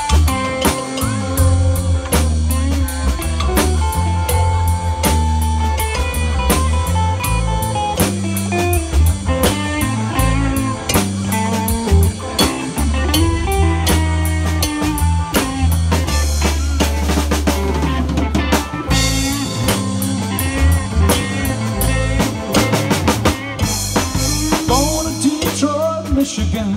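A live blues band plays an instrumental passage: electric guitar lines with bent notes over drum kit, bass guitar and hand percussion.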